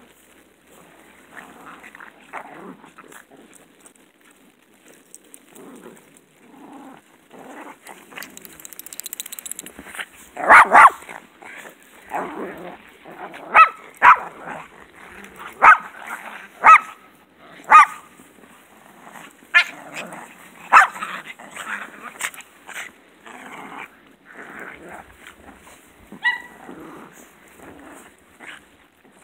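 Poodles barking during rough play: quieter sounds at first, then a run of loud, sharp barks about once a second from about ten seconds in until just past twenty, then quieter again.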